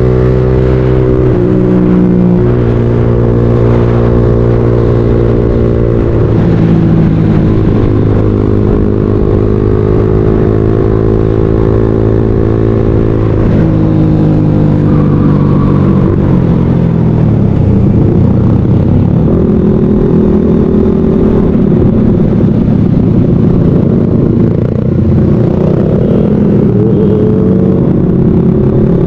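Motorcycle engine running under way, its pitch climbing steadily and dropping back at gear changes about six and thirteen seconds in, then rising and falling more unevenly through the second half.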